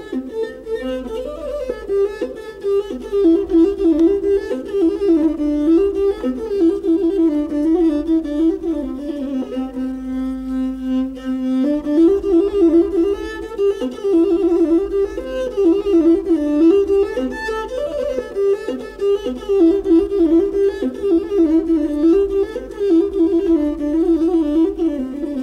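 Masinko (masenqo), the Ethiopian one-string bowed fiddle, playing a solo melody that winds up and down in short notes, with a held low note about ten seconds in and again near the end.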